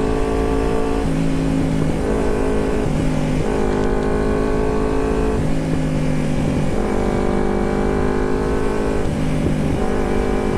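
Carbureted Kawasaki Ninja 250 parallel-twin running through a loud aftermarket Termignoni megaphone exhaust while riding. The exhaust note steps up and down between two steady pitches several times.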